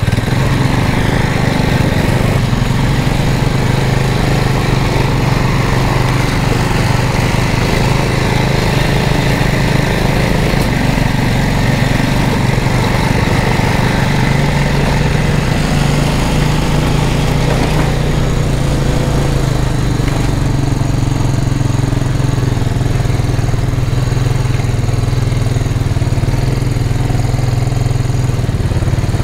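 Small off-road vehicle's engine running steadily, with slight shifts in pitch around the middle and again about twenty seconds in.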